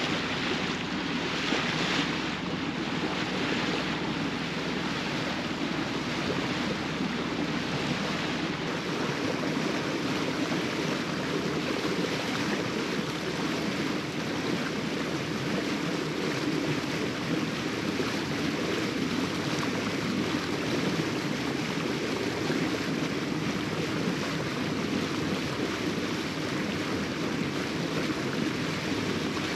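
Sailboat motoring across a flat calm: a steady low drone from the auxiliary engine, with water rushing along the hull and some wind on the microphone.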